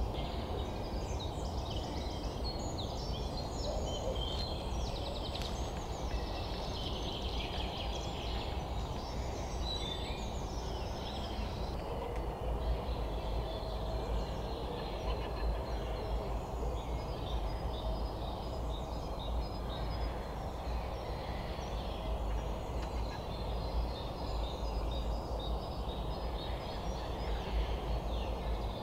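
Several songbirds chirping and singing over one another in a spring morning chorus, with many short high calls throughout, over a steady low background rumble.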